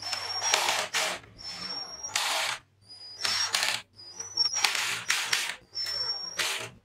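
Cordless drill/driver with a Phillips bit driving screws through an aluminium angle track into plywood, in five short runs: each starts with a high motor whine and ends in a louder, harsher burst, with brief pauses between.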